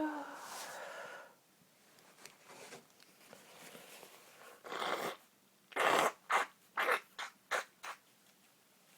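A woman sniffing sharply through her nose about six times in quick succession, her nose irritated by a sneeze she is holding back. It opens with a short strained, voiced breath.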